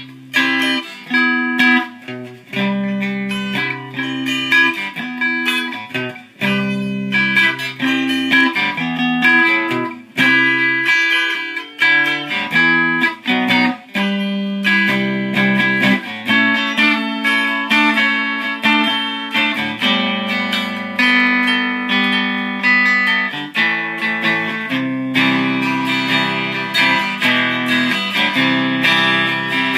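Six-string cigar box guitar being played, a continuous run of picked notes and chords with the pitches changing throughout.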